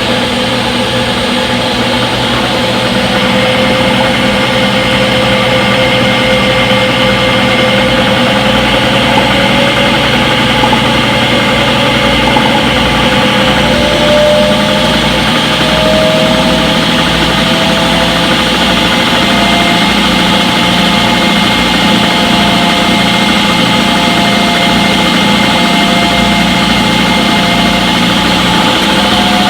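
Front-load washing machine in its spin cycle: a steady motor hum with a whine that rises in pitch over roughly the first half as the drum speeds up, then holds steady at spin speed.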